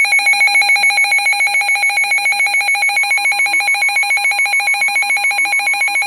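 Electronic emergency alert tone for a severe thunderstorm warning: a loud, rapidly pulsing electronic alarm tone, several beeps a second, with a quieter steady tone joining about halfway through.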